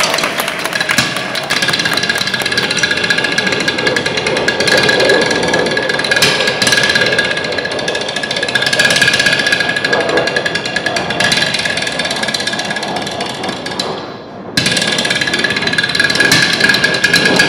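Drumline players beating drumsticks on wooden stools in fast, tightly rhythmic patterns. The striking drops away briefly about 14 seconds in, then comes back in suddenly at full force.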